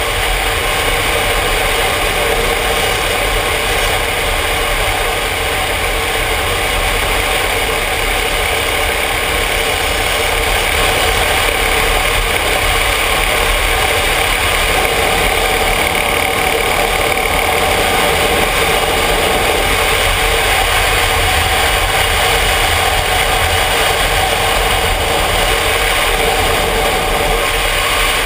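Yamaha Ténéré motorcycle engine running steadily while riding at road speed, mixed with rushing wind and road noise on a helmet-mounted camera; slightly louder from about ten seconds in.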